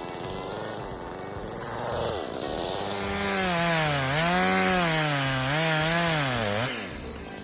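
Jonsered CS2255 two-stroke chainsaw cutting into a birch trunk, its engine pitch rising and falling as the chain loads in the cut. The engine note sinks and drops away shortly before the end.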